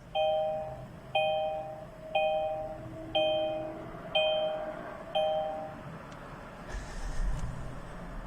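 Car warning chime of a 2022 Kia Sorento sounding six times, about once a second, each a two-note ding that fades. About seven seconds in, a low rumble starts as the cold engine is started.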